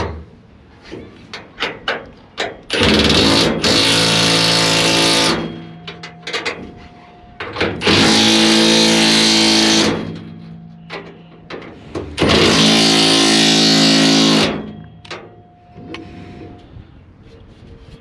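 A handheld power tool run in three bursts of two to three seconds each, with light clicks and knocks between them.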